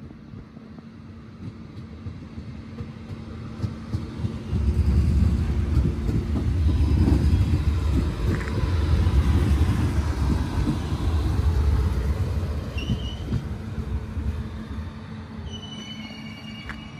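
A Renfe Civia class 463 electric multiple unit rolls past close by. The deep rumble of its wheels on the rails swells about four seconds in, stays loud for several seconds, then fades as it moves away. Short high wheel squeals come near the end over a steady low hum.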